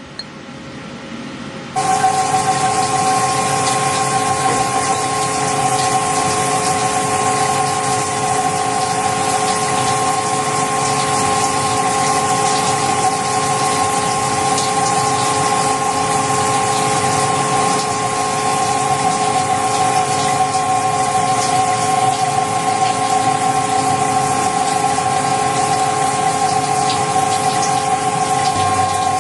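Emco Turn 220 CNC lathe running. About two seconds in, a loud, steady whine with several tones and a hiss underneath starts suddenly and holds.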